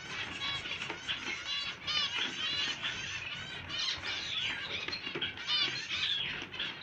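Many small finches chirping at once: a dense chatter of short, high calls overlapping without a break.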